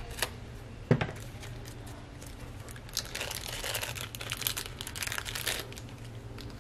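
Hands handling small valve-block parts at a workbench: two sharp clicks in the first second, then about two and a half seconds of crinkling and rustling, over a steady low hum.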